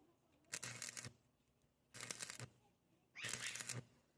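Stick-welding arc with a 6013 electrode, struck and broken again and again: three short bursts of arc crackle, each about half a second long and about a second and a half apart, with a low hum under each burst.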